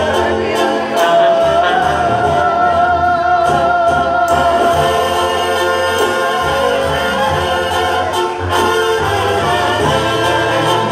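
Live Mexican banda music: a brass band of trumpets and clarinets over a pulsing bass, with singing and a long held note in the first half.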